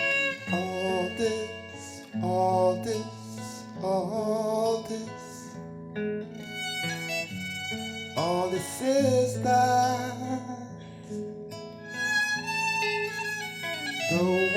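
Slow instrumental music: a wavering melody line over held low notes, with some plucked notes.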